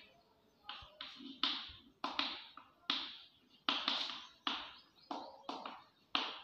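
Chalk writing on a chalkboard: a quick run of short, scratchy taps and strokes as letters are formed, about two a second.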